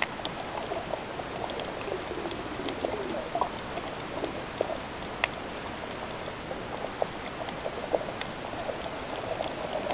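Underwater sea sound picked up by a submerged camera: a steady hiss scattered with frequent small clicks and crackles, and short bubbling gurgles.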